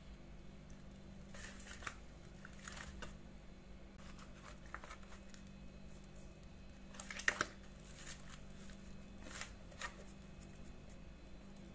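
Hands rubbing seasoning into whole raw fish in a stainless steel baking tray: faint, irregular rustling, slapping and scraping as the fish are pressed and shifted against the metal, with the loudest scrape about seven seconds in. A steady low hum runs underneath.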